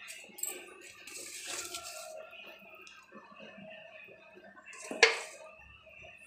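Faint handling sounds at a metal cooking pot: a soft rustling hiss a second or so in and a single sharp clink about five seconds in, the loudest sound.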